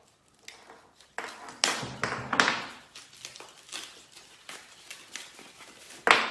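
Packaging being cut and pulled off the parts of a steel tube bender: scattered clicks and taps, short bursts of rustling wrap about a second in, and a loud sharp click near the end.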